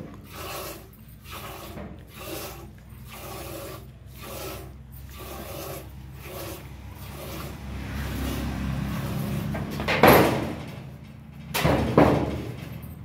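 Hand milking a cow: milk squirting into a steel bucket in an even rhythm, a little under two squirts a second, fading out after about seven seconds. About ten and twelve seconds in there are two loud, brief rushing noises.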